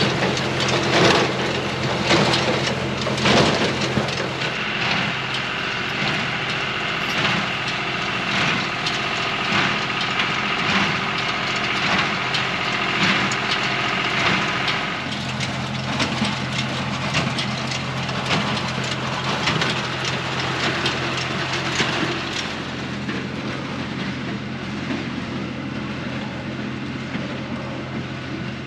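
Tractor engine running steadily while a John Deere 24T square baler works, with repeated knocking and crunching from the baler packing hay. A higher whine joins for about ten seconds in the middle.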